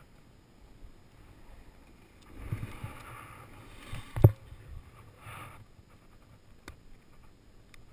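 Snowboard scraping across the snow as the rider slows, then a single sharp thump about four seconds in as he drops to sit on the snow, followed by a shorter scrape.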